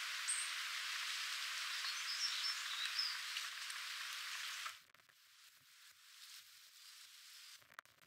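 Steady hiss with a few brief high bird chirps over it; the hiss cuts off suddenly a little past halfway, leaving a much quieter outdoor background.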